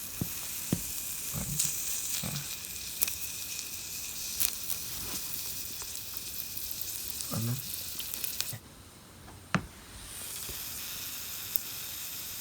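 Mushrooms sizzling steadily in a hot pan, with occasional sharp clicks as they are moved around. The sizzle drops away for over a second near the end, then comes back.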